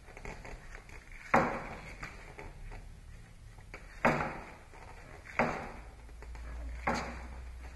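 An oil filter wrench working on a motorcycle's spin-on oil filter as the filter is given a last bit of tightening: four sharp metallic clicks, each with a short scrape, a second or more apart.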